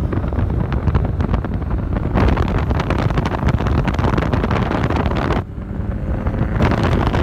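Wind rushing over the microphone and road noise through the open window of a moving car. The sound shifts abruptly a few times between short clips.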